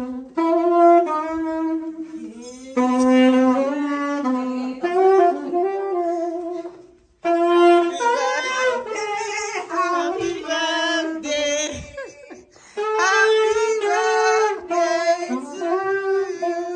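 Saxophone played live in a narrow hallway: a melody in phrases, with short breaks for breath about two and a half, seven and twelve and a half seconds in.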